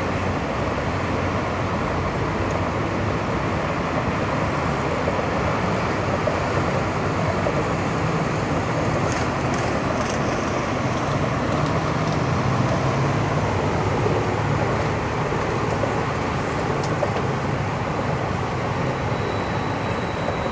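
Steady rumbling noise aboard a moving river boat: engine drone mixed with the rush of water. A thin high whine comes in near the end.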